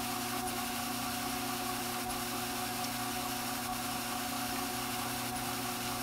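Strauch Mad Batt'r electric drum carder running steadily, its motor giving a constant hum with a faint tick about every second and a half.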